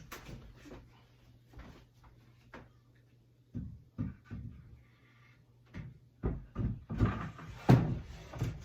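Wooden display rack knocking and clunking as it is lifted and set down into its wooden support foot: scattered light knocks, then a quick run of louder clunks near the end.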